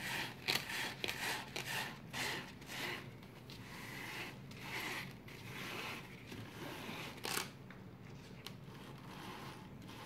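Sandpaper strip scraping and rubbing in irregular strokes as it is wound by hand onto a Flatmaster drum sander's drum, with palms sliding over the paper. Two sharp clicks, one just after the start and a louder one about seven seconds in.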